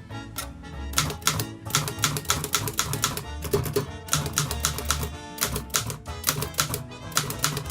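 Keys of a 1937 Continental Standard mechanical typewriter striking in quick, irregular runs of sharp clacks, over background music with a steady bass line.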